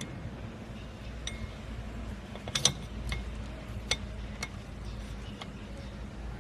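Metal parts of the blade and bearing assembly clinking and clicking as they are handled, with about half a dozen sharp separate clicks, the loudest a quick double click a little past the middle. A steady low hum runs underneath.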